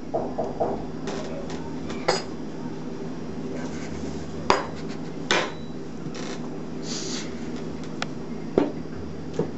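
Kitchenware clattering: a bowl and plates knocking against a metal cooking pot and the table in several separate sharp knocks, the loudest about halfway through, over a steady low hum.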